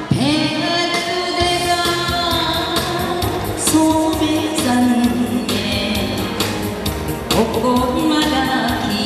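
A woman singing a Korean trot song into a microphone over a recorded backing track, amplified through a PA system. Her voice comes in at the start, after the instrumental intro.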